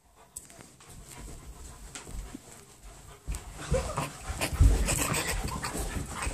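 Dog panting and scuffling while tugging at a rope toy, with handling bumps and knocks growing louder in the second half.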